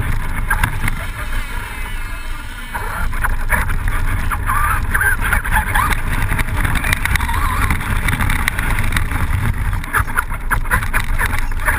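Onboard sound of a Traxxas Rustler VXL RC truck driving over pavement and gravel. There is a steady rumble and rattle from the tyres and chassis, and the brushless motor's whine rises and falls with speed.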